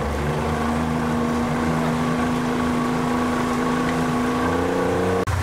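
Motorboat engine running steadily with an even hum that rises a little in pitch near the end, then cuts off suddenly.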